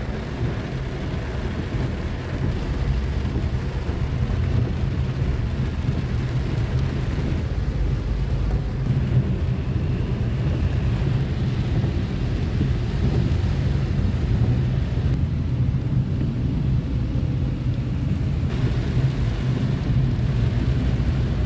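Steady low rumble inside a car's cabin as it drives on a rain-soaked road: engine and tyre noise, with a fainter hiss of rain and spray over it.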